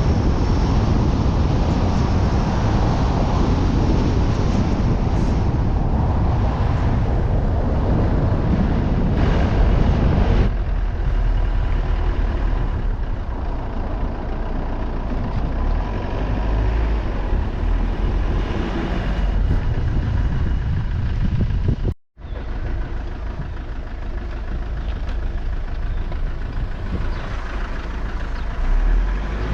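Vehicle driving: a steady low rumble of engine and road noise, louder for about the first ten seconds and then quieter. It breaks off briefly about 22 seconds in.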